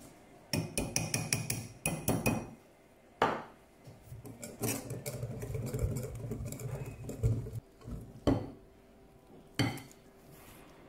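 A metal wire whisk clinks and knocks against a glass mixing bowl while it stirs flour into a cake batter. There is a quick run of clinks at first, then a few seconds of steady swishing and scraping as the flour is worked in, and a couple of sharp knocks near the end.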